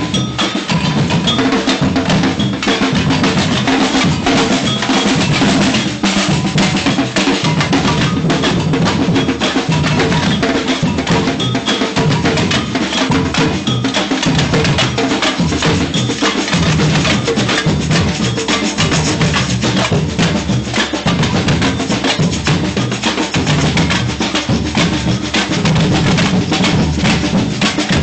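Samba-reggae batucada drum group playing a steady, driving groove: deep surdo bass drums under crisp snare drums.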